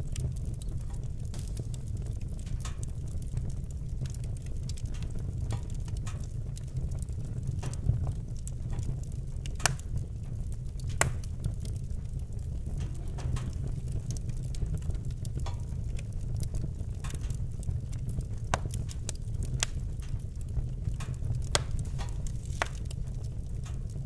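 Wood fire in a fireplace crackling, with irregular snaps and pops over a steady low rumble; a few louder pops stand out around the middle.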